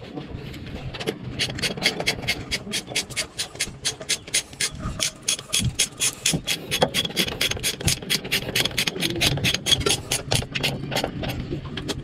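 Rasping strokes from a hand tool worked back and forth, quick and even at about four a second, starting about a second in.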